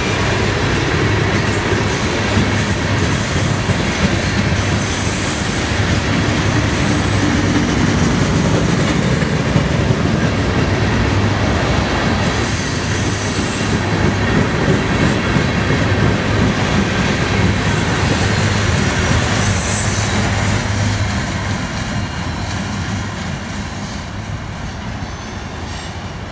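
CSX covered hopper cars of a freight train rolling past at close range: a steady rumble of wheels on rail with clickety-clack and a few brief high wheel squeals. The sound fades over the last few seconds as the end of the train goes by.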